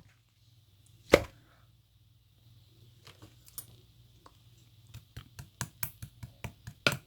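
One sharp knock about a second in, then a run of light taps and clicks that grows quicker near the end.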